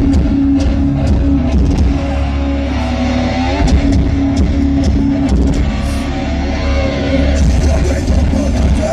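Metalcore band playing live through a festival PA: heavy distorted electric guitars and bass over a pounding drum kit with crashing cymbals, heard from within the crowd.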